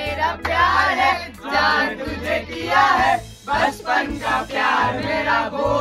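Voices singing a song, several together, over music.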